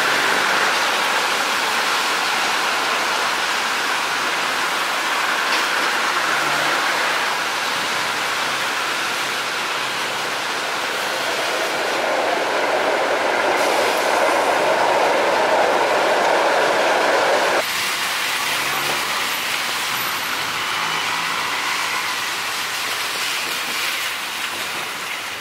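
SITEUR electric light rail trains running past on their tracks, a steady rush of wheel-on-rail noise that swells for a few seconds after the middle. Near the two-thirds mark it changes abruptly to another train passing, slightly quieter.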